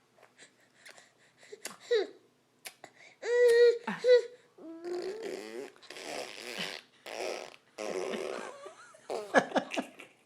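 A baby blowing raspberries with her lips, making wet, sputtering fart-like noises several times, with a short squeal about three seconds in, and laughter.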